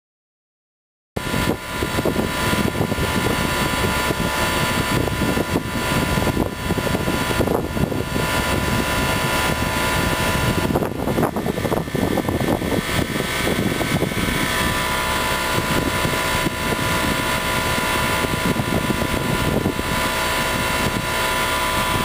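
Outdoor unit of a Coleman (UPG) heat pump running steadily in heat mode, its fan and compressor making a constant hum with a faint steady tone. The sound comes in suddenly about a second in.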